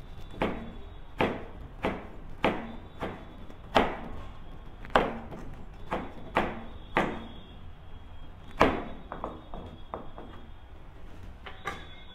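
Kitchen knife slicing a carrot on a plastic cutting board: single chops about one and a half a second, then a quicker run of lighter taps toward the end.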